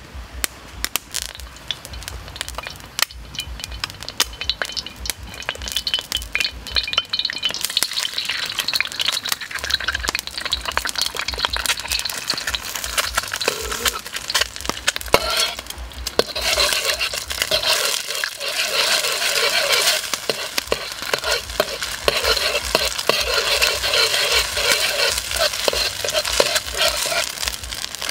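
An egg sizzling and frying in hot oil in a carbon steel wok, with a metal ladle scraping and clicking against the pan as the egg is stirred and scrambled. The sizzle builds about a third of the way in and is loudest in the second half.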